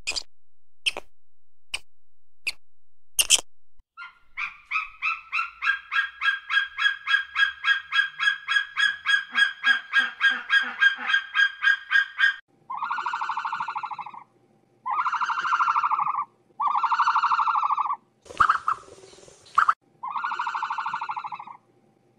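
A few sharp clicks of an animal eating, then a fast series of repeated bird calls, about three a second, then four long honking calls, each a little over a second.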